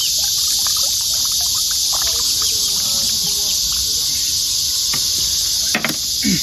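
Steady, loud, high-pitched drone of summer insects, with faint scattered chirps beneath it and a sharp click about six seconds in.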